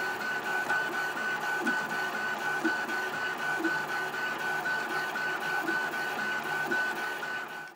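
Celeritas high-speed 3D printer running a print, its stepper motors driving the print head rapidly back and forth in a steady mechanical whir, with a high tone that pulses rapidly at one pitch.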